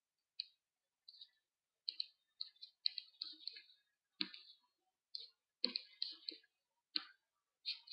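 Computer mouse buttons clicking at an uneven pace, about a dozen short, faint clicks, several in quick pairs like double-clicks while opening folders.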